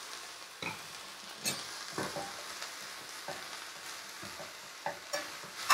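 Diced mushrooms, onion and red pepper sizzling in a stainless sauté pan on a gas hob while being stirred with a spatula: a steady hiss with a few scattered scrapes and knocks of the spatula against the pan.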